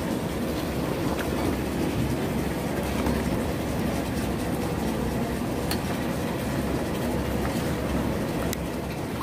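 Metal ladle stirring vegetables and water in a large aluminium pot, with a few sharp clinks of metal on metal, over a steady low rumble.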